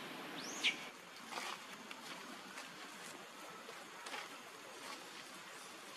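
A macaque gives one short high squeal that rises and then falls, about half a second in. After it there is only a faint steady outdoor hiss with a few soft ticks.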